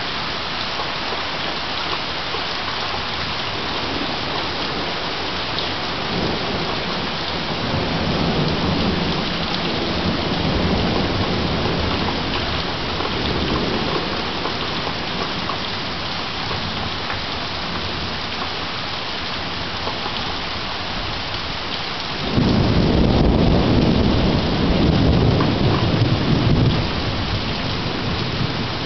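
Steady rain falling throughout, with a low roll of thunder that builds from about six seconds in and fades again. About twenty-two seconds in a louder peal of thunder breaks in suddenly and rumbles for several seconds.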